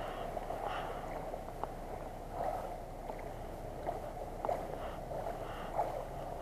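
Water lapping and sloshing against a float tube, with small irregular splashes.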